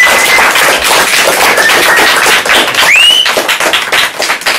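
Audience applauding, with a few whistles over the clapping, one of them a short rising whistle about three seconds in. The clapping thins out near the end.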